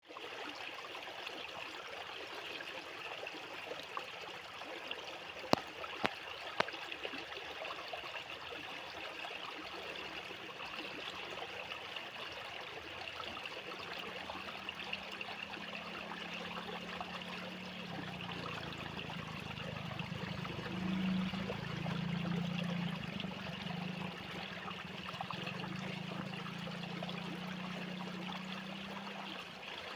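Fast-flowing water running steadily. There are a few sharp clicks early on, and a low hum comes in about halfway through and grows louder in the second half.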